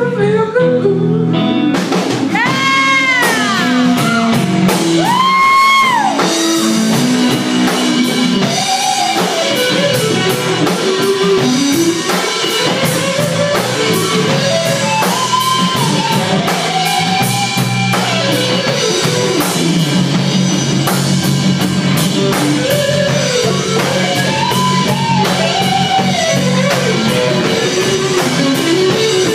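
Live blues-rock band: a Stratocaster-style electric guitar solo full of bent, wavering notes over bass guitar and a drum kit, with a few long, bending held notes near the start.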